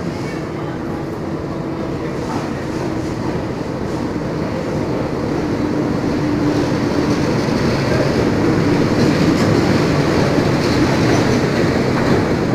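Meter-gauge diesel-hauled passenger train moving past the platform: the locomotive's engine drone, then the coaches' wheels rolling on the rails, growing steadily louder.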